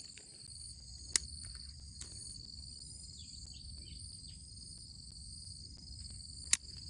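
Steady chorus of insects in the surrounding vegetation, a continuous high-pitched trilling, with two sharp clicks, one about a second in and one near the end.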